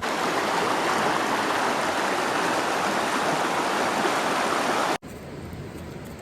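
Steady rush of running water that starts suddenly and cuts off abruptly about five seconds in, leaving a fainter hiss.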